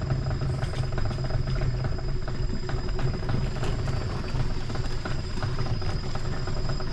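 Small boat engine running steadily at an even pitch.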